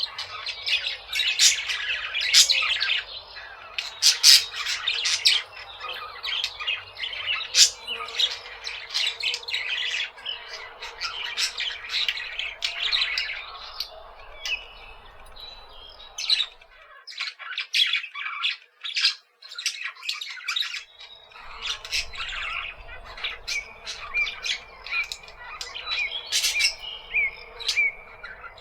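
A flock of parakeets chattering and squawking, many short overlapping chirps and screeches that thin out briefly past the middle, then pick up again.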